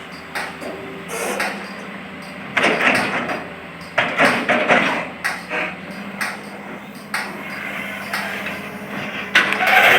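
Excavator diesel engine running with a steady hum, with irregular bursts of clattering and knocks as soil and the bucket hit a truck bed, a few seconds in, again around the middle, and near the end.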